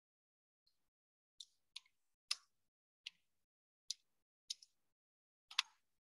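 Single key presses on a computer keyboard: about eight short, sharp clicks at an uneven pace, roughly one every half second to second.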